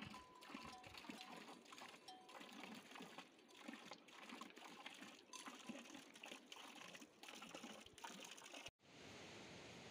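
Faint, irregular clicks and rustling from a herd of goats moving over stony ground, with a goat bell ringing faintly at the start. Near the end it cuts off abruptly to a steady hiss.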